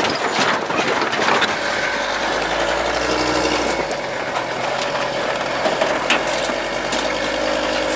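GAZ-63 truck's straight-six petrol engine running as the truck drives along, with a steady whine above the engine note and a few short knocks and rattles.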